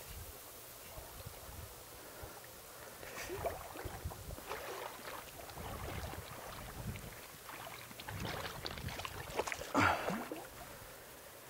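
Creek water splashing and sloshing in irregular bursts around a wading angler playing a hooked brown trout, with the loudest splash near the end.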